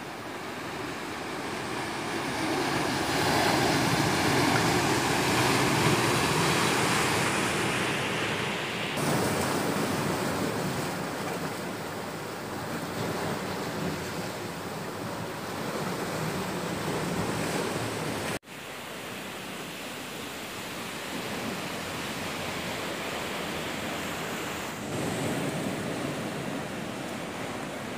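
Sea surf breaking and washing among boulders and round cobbles on a rocky shore, swelling loudest a few seconds in. It breaks off in an abrupt cut about two-thirds of the way through, and a quieter wash of surf carries on after it.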